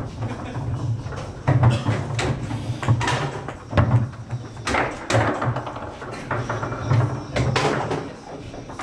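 Foosball table in play: irregular sharp knocks and clacks as the ball is struck by the players' figures and bangs against the table.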